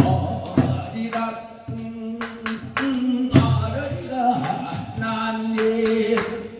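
A man sings a Korean folk song into a microphone, holding long, wavering notes. A buk barrel drum accompanies him with sharp strokes at irregular intervals.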